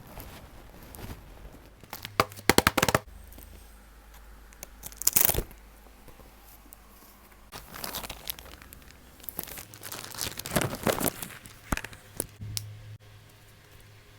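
Packaging being torn open and crinkled by hand, in short bursts: a quick rip of several strokes about two seconds in, another near five seconds, and a longer stretch of crinkling and tearing later on.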